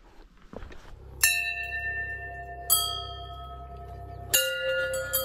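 Brass temple bells hanging from a metal stand, struck by hand four times, each strike ringing on with clear, lingering tones.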